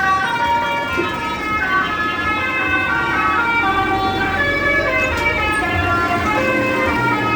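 Bus 'telolet' multi-tone air horn playing a tune: several horn tones sounding together in held notes that step up and down in pitch.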